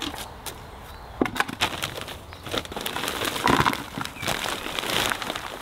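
Plastic compost bag crinkling and rustling as it is handled, with scattered clicks, then potting compost pouring out of the torn bag into a plastic plant pot in the second half.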